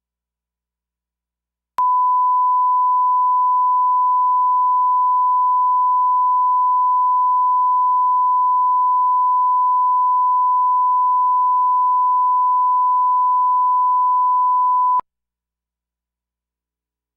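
Steady 1 kHz line-up test tone, the reference tone that runs with SMPTE colour bars. It starts with a click about two seconds in, holds one unchanging pitch, and cuts off sharply with a click about thirteen seconds later.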